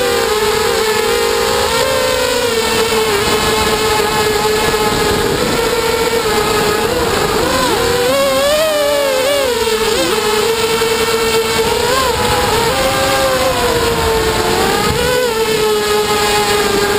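QAV250 racing quadcopter's brushless motors whining, heard close up from the GoPro on the drone's nose. The whine holds a fairly steady pitch, with brief swells and dips as the throttle changes, most marked about eight to ten seconds in.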